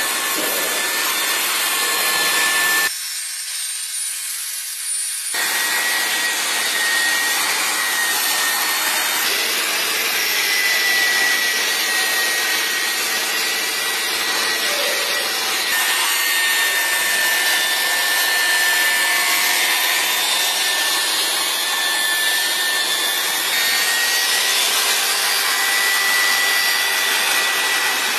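Hand-held electric orbital tool running against a car's painted bodywork: a steady whine over a rough rubbing hiss, which thins briefly about three seconds in.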